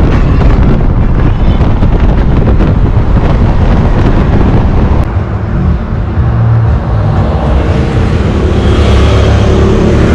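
An off-road vehicle's engine running, with wind buffeting the microphone and rough crackling in the first half. From about six seconds in, the engine settles into a steadier drone.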